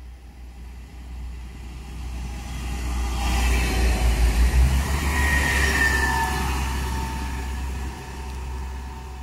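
A vehicle passing close by, swelling to a peak about four to five seconds in and then fading, with a faint whine that dips slightly in pitch as it goes past, over a steady low rumble.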